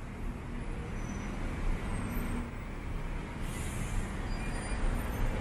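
Road traffic passing on a city street: a steady low rumble of engines and tyres that grows slowly louder.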